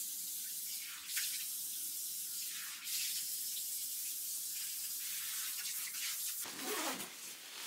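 Steady rush of running water, as from a tap. About six and a half seconds in, it turns fuller and more uneven.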